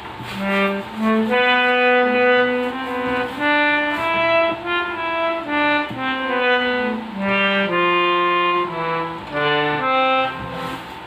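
Harmonium playing a short melody of held reedy notes, one after another, rising and falling in pitch.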